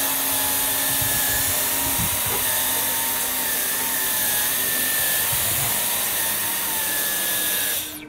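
Dyson V12 cordless stick vacuum running with its mini motorhead tool on a bed sheet, sucking talcum powder up out of the mattress beneath: a steady motor whine over a rush of air, switched off abruptly near the end.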